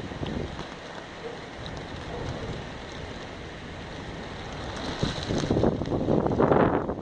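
Rain falling steadily, with a loud low rumble swelling from about five seconds in and dropping off abruptly near the end.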